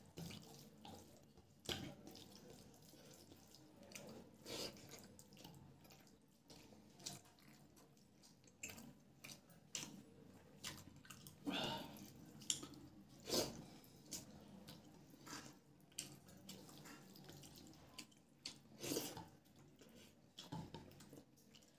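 Soft, wet squishing and smacking of a hand mixing rice and chicken curry on a plate, with chewing, in short irregular clicks.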